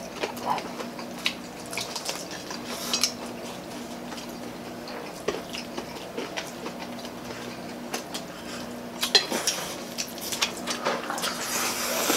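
Eating at a table: scattered clicks and light clinks of plates and hands picking at fried chicken, with chewing, and a hissing slurp of noodles near the end.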